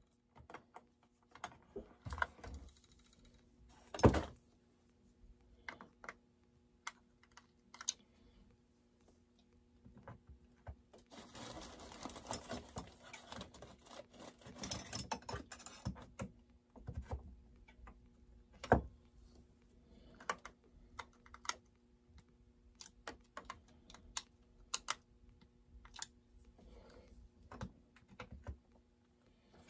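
Scattered clicks, taps and knocks of plastic and metal chainsaw parts being handled and fitted by hand, with a louder knock about four seconds in and a stretch of rustling, scraping noise in the middle.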